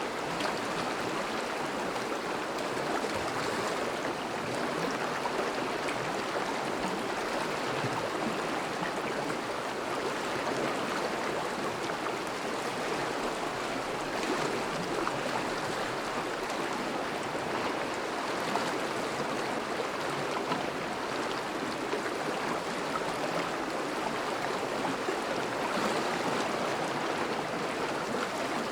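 Thawing river's water flowing and rushing steadily, a continuous even wash of water noise.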